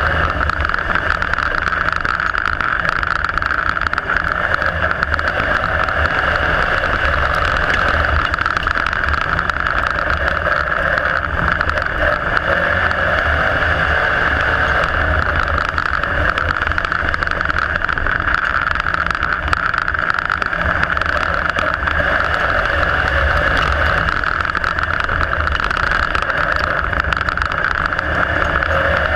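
IMCA Modified dirt-track race car's V8 engine running hard at racing speed, heard from inside the cockpit: a loud, steady engine drone with no pauses.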